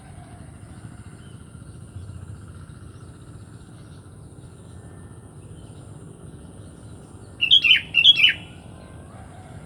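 Sooty-headed bulbul (kutilang) giving two quick, bright call phrases about half a second apart near the end, each dropping in pitch, over a low steady rumble.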